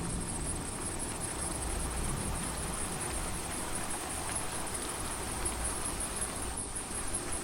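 Steady rain ambience, with a high chirping that pulses at an even rhythm throughout.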